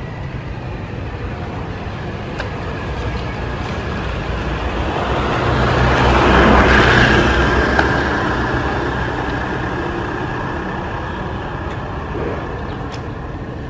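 A road vehicle passing by over steady traffic noise: the engine and road noise swell to a peak about six to seven seconds in, then slowly fade.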